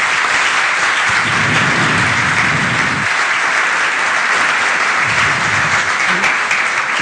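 Audience applauding steadily: the dense patter of many hands clapping.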